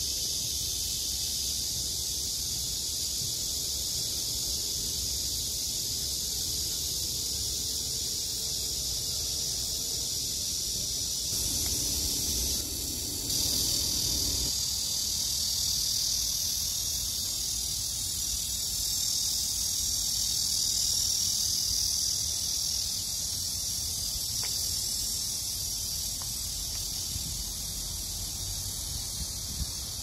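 A chorus of cicadas buzzing in a dense, steady, high-pitched drone, swelling slightly past the middle, over a low background rumble.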